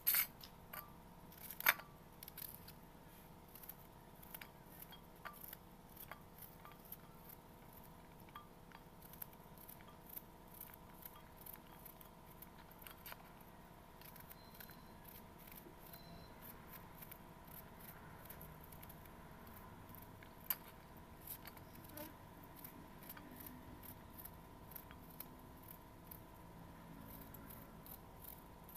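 Small kitchen knife cutting a red onion held in the hand: a run of light, irregular clicks and snips as the blade goes through the layers, with the papery skin being pulled off at first. A faint steady hum runs underneath.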